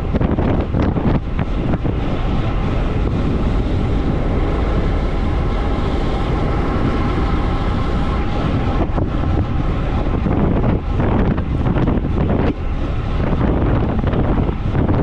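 Wind buffeting the camera microphone on a fast road-bike descent at about 55 km/h: a steady, loud rushing roar.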